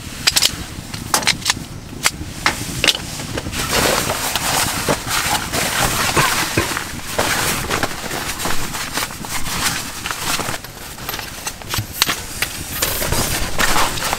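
Heavy canvas fabric rustling and flapping as it is unfolded and moved about by hand, with scattered sharp clicks and knocks in the first few seconds and again near the end.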